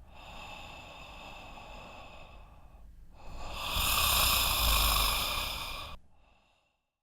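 A sleeping person snoring: two long breaths, the second much louder and deeper, then the sound fades out about six seconds in.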